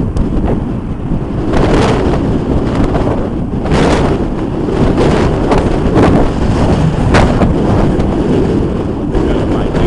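Strong gusty wind buffeting the microphone: a loud, steady low rumble with sharper gusts swelling up about two, four, six and seven seconds in.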